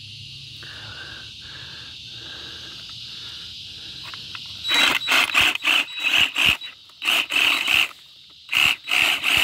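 DeWalt 20V cordless reciprocating saw cutting through sago palm frond stems in a quick series of short bursts, about a dozen, starting about halfway through. Under it runs a steady high drone of cicadas.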